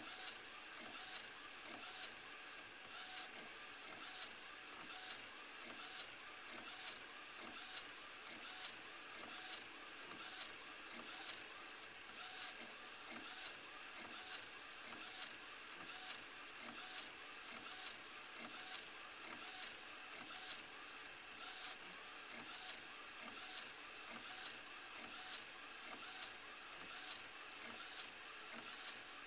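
LogoJET flatbed inkjet printer printing: the print-head carriage sweeps back and forth about three passes every two seconds over a steady whine.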